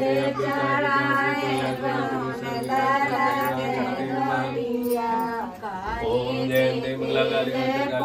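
Several women singing a song together, the melody wavering through long phrases, with a brief pause about five and a half seconds in.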